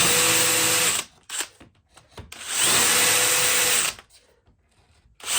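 Power drill running an Amana countersink bit into wood in short bursts. One run stops about a second in, a second lasts about a second and a half midway, and a third starts near the end, each with a steady motor whine.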